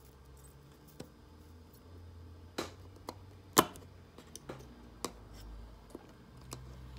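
Scattered light metallic clicks and taps of pliers and a soldering iron tip against a wire slot-car chassis in its jig, with one sharper click about three and a half seconds in.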